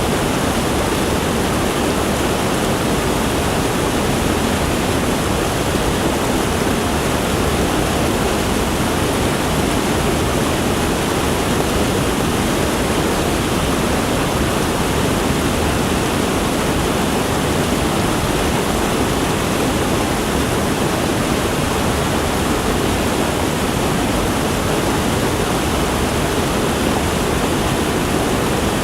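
Waterfall: a steady, loud rush of falling water, an even roar with no pauses or changes.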